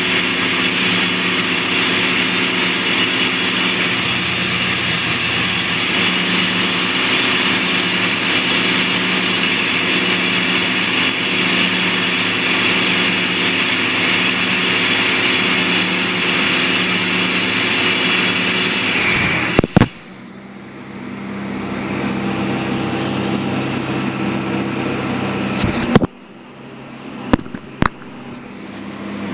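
Underground down-the-hole drill rig running and drilling into rock, a loud steady machine noise. It cuts off suddenly about two-thirds of the way through, leaving a quieter steady machine hum and a few sharp knocks near the end.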